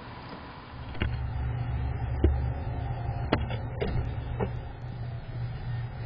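Low steady rumble with about half a dozen sharp, irregular knocks and taps on a wooden nest box.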